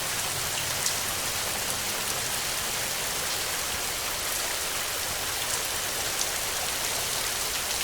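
Steady rain falling: an even hiss, with a few sharper drop ticks now and then.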